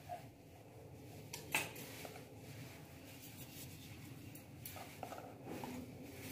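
Quiet kitchen handling: a knife cutting a roll of dough and tapping a wooden board, with one sharper knock about a second and a half in and a few soft taps later on.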